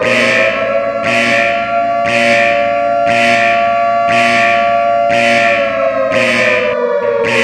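Homemade emergency-alert-system alarm: a siren-like tone with overtones that holds high and slowly falls away near the end, over a bell-like strike that repeats about once a second.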